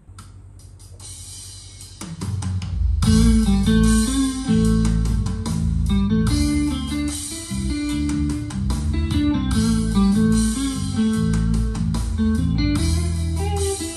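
A recorded song played back on a hi-fi system: a guitar-led instrumental intro over bass and drums, starting softly and filling out about two to three seconds in.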